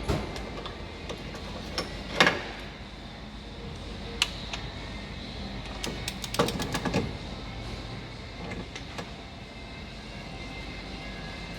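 A few scattered clicks and knocks, as of tools and parts being handled on the engine, with a cluster of them about halfway through, over a steady low hum.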